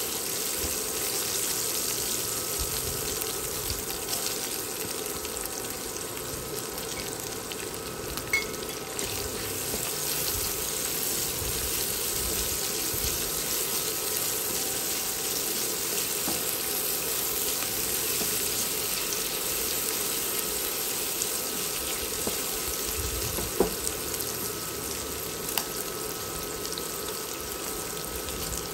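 Food sizzling steadily in hot oil in a wok while it is stir-fried with a silicone spatula, with a few brief clicks of the spatula against the wok.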